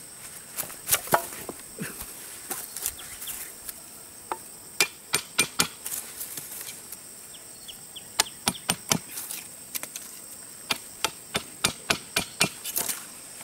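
A machete chopping and trimming wooden sticks: runs of sharp, quick strikes, several a second, with pauses between the runs. Insects drone steadily and high behind.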